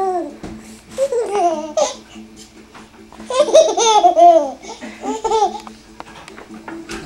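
Six-month-old baby laughing out loud in three bursts, the longest and loudest about three and a half seconds in.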